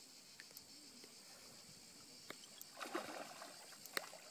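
A hooked grass carp splashing briefly at the water's surface about three seconds in, over a steady high chirring of insects.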